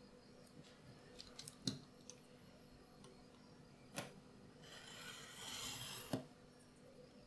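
Faint desk-work sounds: light clicks and ticks of a steel ruler being handled on paper and a cutting mat, then a sharp knock about four seconds in. A scratchy stroke of a tool drawn along the ruler's edge across paper lasts about a second and a half and ends in another sharp knock.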